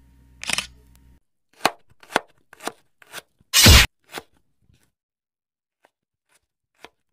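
A large knife chopping into Asian palmyra (ice apple) fruit: a run of sharp blows about half a second apart, the heaviest one about three and a half seconds in. They stop after about four seconds, leaving only a couple of faint ticks.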